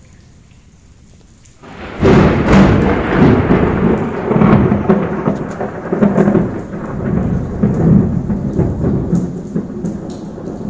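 A thunderstorm: thunder breaks in loudly about two seconds in and rumbles on, swelling and fading, over heavy rain.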